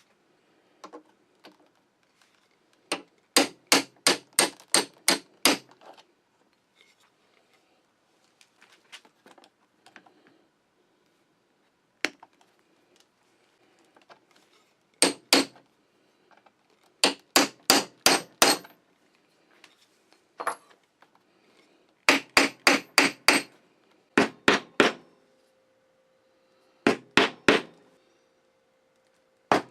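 Hammer striking a metal leatherworking tool in quick bursts of three to eight sharp, ringing blows, with pauses between the bursts.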